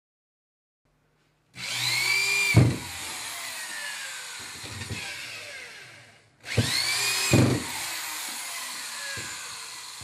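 A power drill run in two bursts about five seconds apart. Each burst spins up and winds down in pitch, with a sharp knock about a second after it starts, then fades away.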